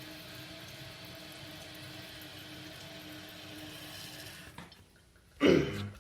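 2008 Kohler Kelston toilet tank refilling after a flush: the fill valve hisses steadily with a faint whistle-like tone, then shuts off about four and a half seconds in. Just before the end there is a short loud sound lasting about half a second.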